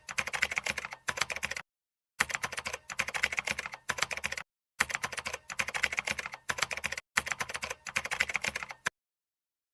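Computer-keyboard typing sound effect: four runs of rapid key clicks, each one to two seconds long, separated by short gaps of dead silence that stop and start abruptly.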